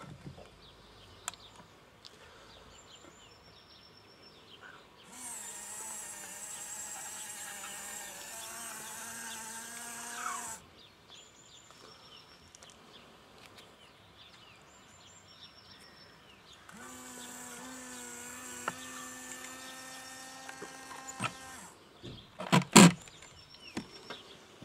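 Small electric motor in a converted Bruder model warning-sign trailer runs twice, about five seconds each, raising and then lowering the sign board. Each run is a steady whine, and the first wavers and rises briefly at its end. A few sharp knocks come near the end, and birds chirp faintly in the background.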